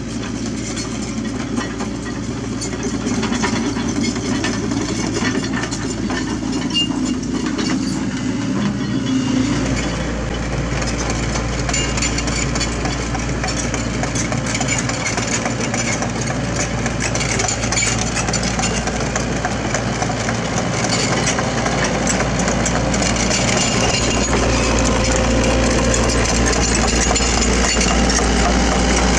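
SANY SY75 mini excavator's diesel engine running under hydraulic load as it digs, then the machine tracking along a paved road with its steel tracks clattering, growing louder as it comes close.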